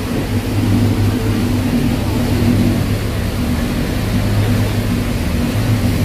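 Cruise boat's engine running with a steady low drone, under an even rushing noise as the boat moves along the water.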